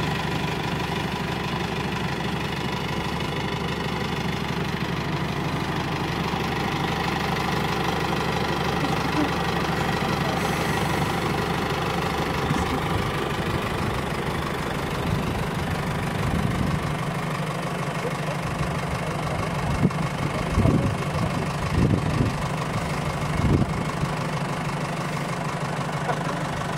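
A vehicle engine idling steadily. Near the end there are a few short, louder bumps.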